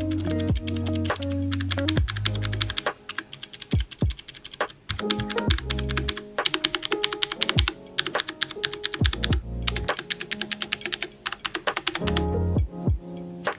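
Fast typing on an AmazonBasics mechanical keyboard with clicky blue switches, dense runs of sharp key clicks in bursts broken by short pauses.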